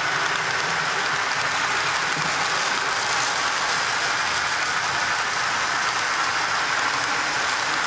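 Model freight train cars rolling past close by, a steady even noise of metal wheels running on the track.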